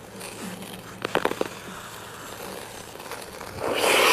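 Thick lake ice cracking under a skater: a quick cluster of sharp snaps and pings about a second in. Near the end a loud rushing scrape about a second long covers everything else.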